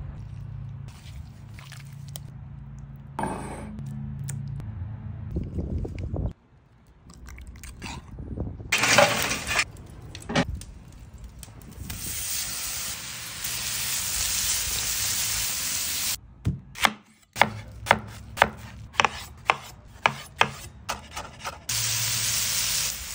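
Chicken pieces sizzling on a hot oiled flat-top griddle, a steady hiss. Near the middle it gives way to a run of sharp knife chops on a cutting board, about two a second, before the sizzle returns.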